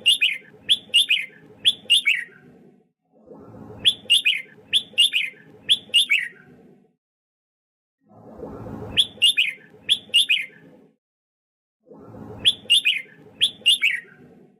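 Red-whiskered bulbul singing: four short phrases of quick, falling whistled notes, each a couple of seconds long with silent gaps between them, over a low background rumble that comes and goes with each phrase.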